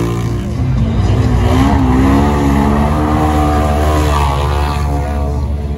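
Four-wheeler (ATV) engine at full throttle through deep mud, its pitch wavering up and down as the tyres churn, easing off near the end.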